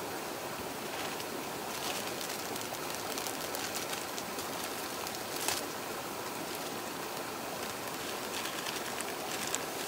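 Wood campfire crackling with scattered pops, the sharpest about five and a half seconds in, over the steady rush of a river.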